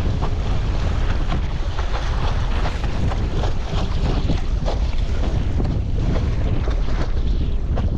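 Wind buffeting the microphone over water lapping and slapping against a windsurf board's hull, with irregular short splashes.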